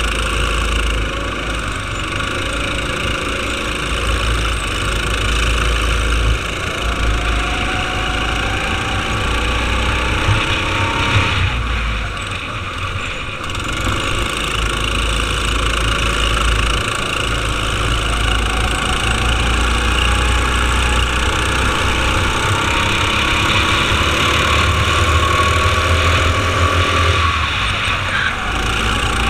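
Go-kart engine running hard on a racing lap. Its pitch climbs slowly on two long pulls and drops suddenly twice, about eleven seconds in and near the end.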